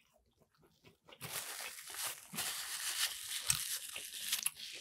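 Crinkling and crunching of a fried-chicken takeout meal close to the microphone. It starts about a second in and lasts about three seconds.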